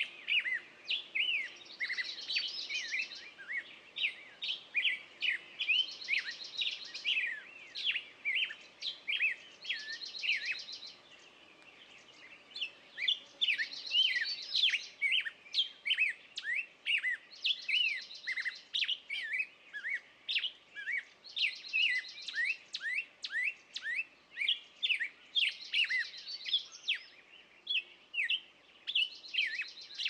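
Small songbirds chirping: many quick, overlapping short calls, with a rapid high trill repeating about every four seconds and a short lull partway through.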